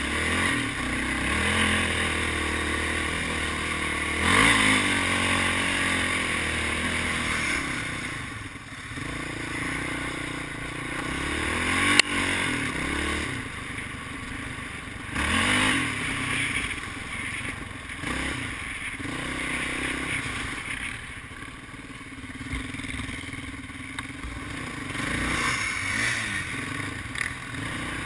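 Sport quad's single-cylinder four-stroke engine running under load on a dirt trail, revving up and easing off again and again as the rider works the throttle. There is a sharp knock about twelve seconds in.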